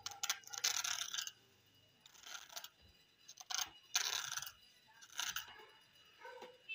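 Kitchen knife scraping the skin off a bottle gourd, a run of short, irregular rasping strokes with brief pauses between them.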